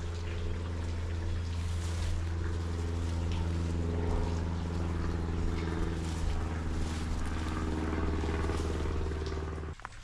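A steady engine drone with a strong deep hum and slowly wavering overtones, cutting off abruptly near the end.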